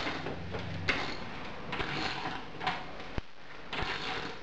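Socket wrench ratcheting in short bursts, about one stroke a second, tightening a lag bolt through a wooden wall bracket, with a single sharp click about three seconds in.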